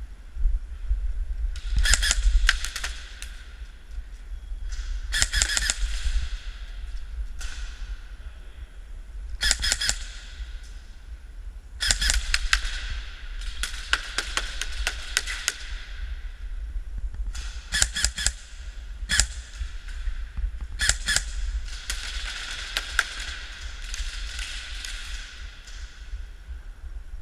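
Airsoft guns firing in bursts of rapid sharp clicks, about seven bursts spread a few seconds apart, over a steady low rumble.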